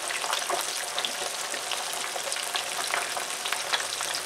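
Breaded flounder fillets frying in shallow oil in a square pan: a steady sizzle with many small crackling pops.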